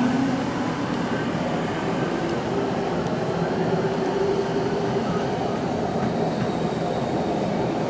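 Kwun Tong Line subway train departing the station, its cars running past: a steady rumble of wheels on track with a faint steady motor whine.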